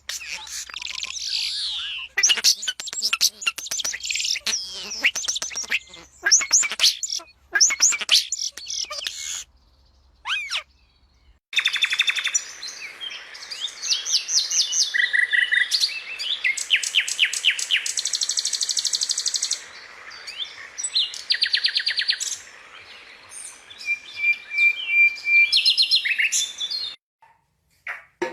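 Birds singing and chirping: many quick calls, sweeping whistles and rapid trills. The song breaks off for about two seconds around ten seconds in, then resumes with fast repeated notes and a short held whistle near the end.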